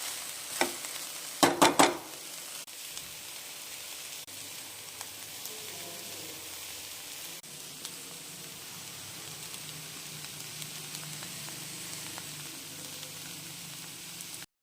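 Aloo methi (potatoes and fenugreek leaves) sizzling steadily in hot oil in a pan. A quick run of three or four sharp knocks of a spoon against the pan comes about a second and a half in, the loudest sounds here.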